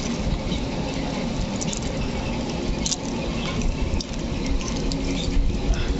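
Small fish flapping and pattering on a wet cast net and boat floor, as scattered light wet slaps and clicks, over a steady low rumble.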